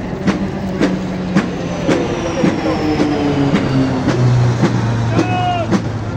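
Aircraft flying over in formation, their engine note falling slowly in pitch as they pass. A marching drum beats steadily about twice a second underneath.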